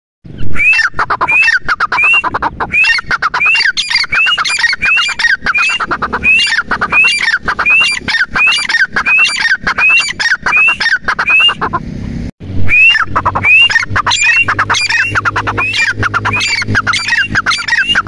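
Grey francolin calling over and over: a loud, shrill rising note repeated about one and a half times a second, broken only briefly about twelve seconds in.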